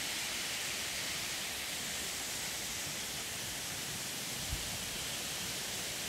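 Steady, even rush of a waterfall and its cascading mountain stream. There is one soft low thump about four and a half seconds in.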